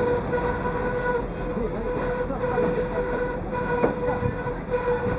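Tourist train running along the track, heard from inside a moving carriage: a steady rumble with a steady whining tone that drops out and returns several times.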